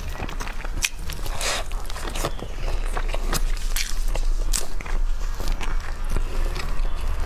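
Roast chicken leg being torn apart by hand: moist tearing of skin and meat with a run of short wet clicks and crackles, and a longer tear about one and a half seconds in.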